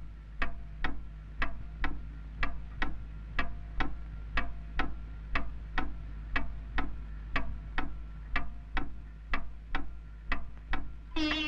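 Pendulum wall clock ticking, sharp even ticks about two a second. Near the end, sitar music comes in.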